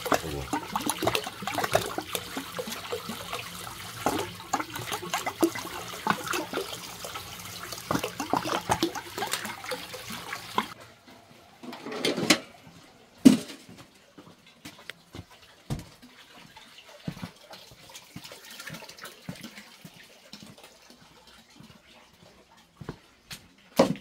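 Spring water running from a hose into a water-filled tub, splashing steadily at a normal, modest flow now that the blocked hose runs freely again. About eleven seconds in the splashing stops suddenly, leaving faint scattered knocks and clicks.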